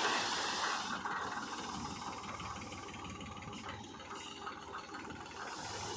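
Heavy diesel machinery engine running steadily, with a rushing noise in about the first second and a few faint rattles and clicks later.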